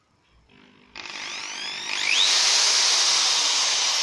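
Makita MT M8101B 710 W corded hammer drill switched on and running free with no bit and no load: the motor spins up with a rising whine about a second in, then runs steadily at full speed.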